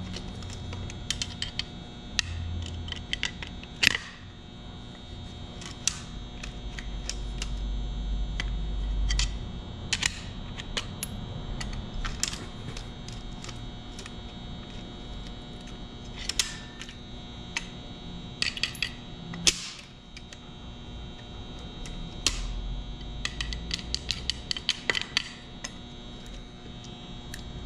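Scattered sharp metallic clicks and clinks as a valve spring compressor is worked on the valve springs and keepers of a Ford Model A four-cylinder engine block. They come in small clusters over a steady background hum.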